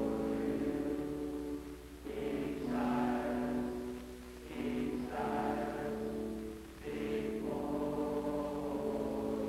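Boys' choir singing a hymn in sustained phrases, with brief breaks between phrases about two, four and a half and seven seconds in. A low steady hum runs under the singing.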